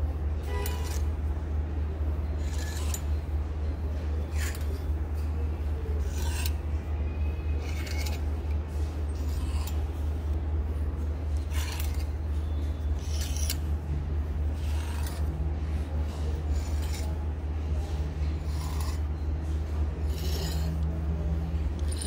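Plastic clothes hangers scraping and clicking along a clothing-rack rail as shirts are pushed aside one at a time, a stroke every second or so. A steady low hum runs underneath throughout.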